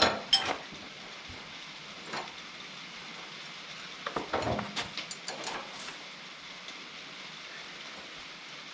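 Clicks and knocks of the clamping arm being handled and fitted onto the bar of a Wood-Mizer LT15 sawmill's log clamp, a few near the start, one about two seconds in and a cluster between four and six seconds, over a steady hiss.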